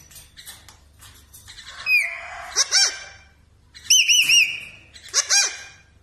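Caged green parakeet calling in four short bursts of sharp, high whistled notes. The loudest burst, about four seconds in, is three quick rising-and-falling whistles.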